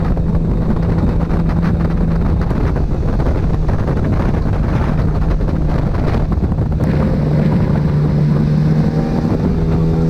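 Fishing boat's outboard motor running at speed, with a steady engine note that grows stronger about seven seconds in, and wind buffeting the microphone.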